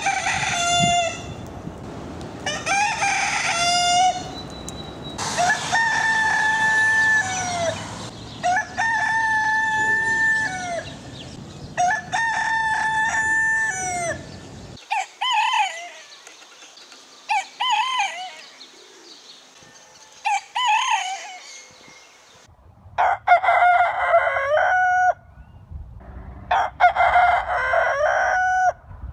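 Roosters crowing, about ten crows one after another, from several recordings joined together, so the background noise changes abruptly between them.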